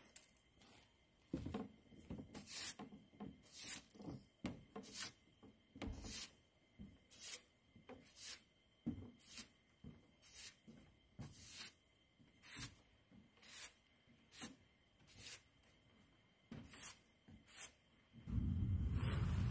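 A regular series of short scraping or rubbing strokes, about two a second, with a louder steady rushing noise starting near the end.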